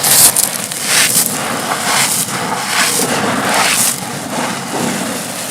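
Dry concrete chunks being crushed and crumbling, a crunchy gritty crackle in repeated surges about once a second.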